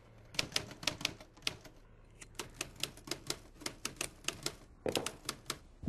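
Manual typewriter keys striking in quick runs of sharp clacks, about five a second, with a short pause about two seconds in and a heavier strike near the end.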